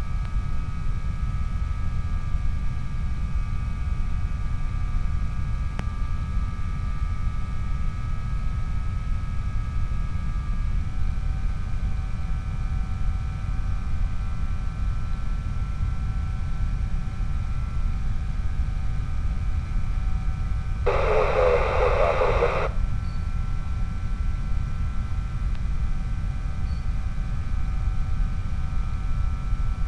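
Skyhunter FPV plane in flight: a steady motor and propeller whine over a heavy low wind rumble, the whine stepping slightly in pitch about a third of the way through. About two-thirds through, a brief burst of hiss lasting under two seconds.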